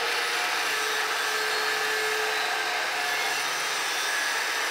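4.5-inch angle grinder with a 1/8-inch cut-and-grind disc grinding steadily into a steel weld seam, gouging out a line of incomplete fusion.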